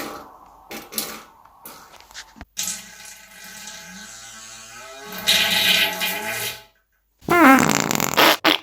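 Toilet flushing: a rush of water about five seconds in, after a buzzing pitched sound. After a short silence, a loud pitched sound sweeps in pitch near the end.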